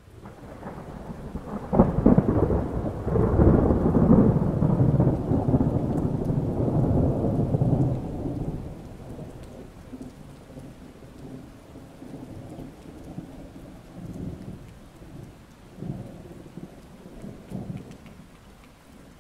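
A thunderclap about two seconds in, rolling into a long low rumble that dies away after several seconds. Steady rain follows, with a few fainter rumbles of thunder near the end.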